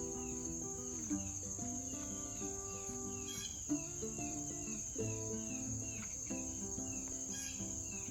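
A steady high-pitched insect trill, like crickets, runs throughout, with instrumental background music of sustained and plucked notes.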